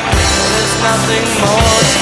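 Rock song with drums and a sung vocal, a steady beat of kick and cymbal hits under it.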